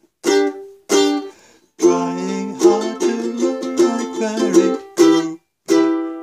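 Ukulele strummed chords in G minor, F and E minor: two single strums, then a quick run of strokes lasting about three seconds, then two more single strums near the end.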